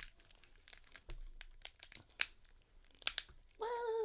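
Cooked lobster tail shells cracking and crinkling as they are pulled apart by hand, with several sharp cracks. Near the end a voice lets out a short hum.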